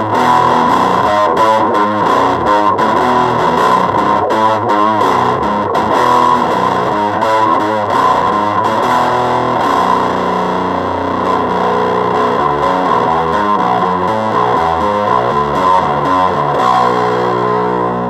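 Electric guitar through a fuzz noise pedal, played out of a speaker: a heavily distorted, glitchy sound whose pitches hop in quick stepping patterns over a steady high drone. Near the end it settles into steadier held tones.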